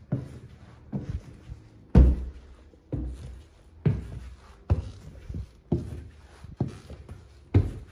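Footsteps climbing wooden stairs: a heavy, steady tread about once a second, each step a low thud on the hollow wooden treads.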